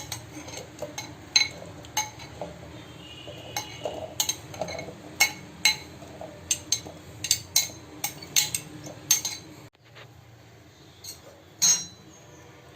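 Kitchen utensils clinking against dishes: a run of about twenty sharp, irregular clinks with a brief ring, over a low hum that cuts off about ten seconds in.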